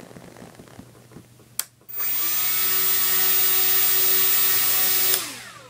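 Electric motor and propeller of an RC plane spinning up with a steady whine and running for about three seconds. It cuts off suddenly, killed by the transmitter's throttle-cut switch, and winds down in a falling whine. A single click comes just before the motor starts.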